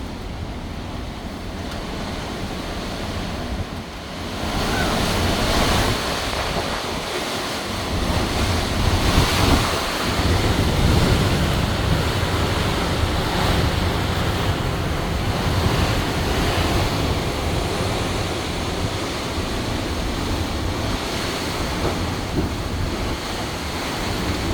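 Strong, gusty storm wind ahead of Hurricane Milton, rushing and buffeting the microphone with a low rumble. It grows louder about four seconds in.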